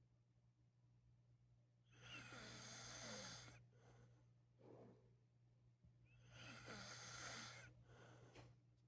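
A man snoring in his sleep: two long, rasping breaths about four seconds apart, each followed by a shorter, lower breath, over a steady low hum.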